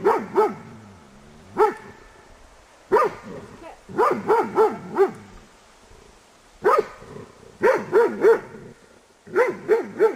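A dog barking in repeated bursts of one to five sharp barks, with short pauses between bursts, alarm-barking at the white sheet-draped 'ghost' figures of a temperament test.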